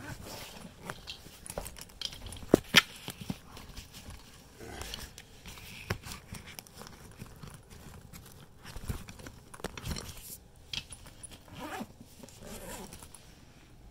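Zipper being drawn closed on a soft Humes & Berg Galaxy stick and mallet bag, with fabric rustling and scattered clicks as the bag is handled, and two sharp knocks about two and a half seconds in.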